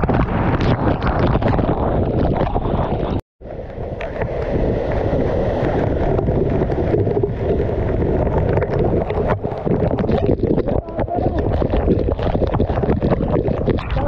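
Waterfall water pouring onto the camera, a loud steady rush with crackling buffeting where it strikes the microphone. It cuts out completely for a split second about three seconds in.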